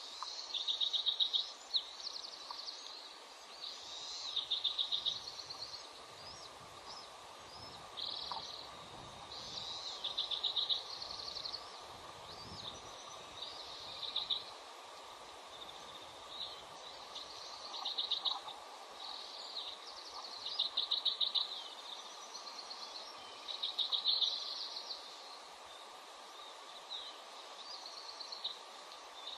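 A bird singing the same short song over and over, a few quick notes ending in a buzzy trill, about every three seconds, over a faint steady hum.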